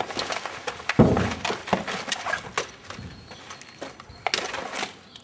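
Irregular knocks, clicks and rustles of toy rifles and vests being grabbed and handled, with a louder thump about a second in.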